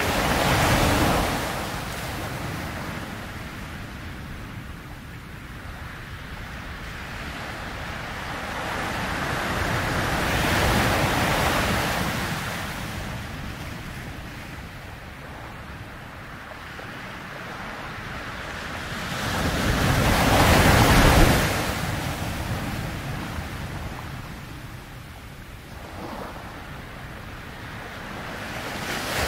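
Ocean surf: waves rolling in and washing back out, the hiss swelling and fading about every ten seconds, loudest about two-thirds of the way through.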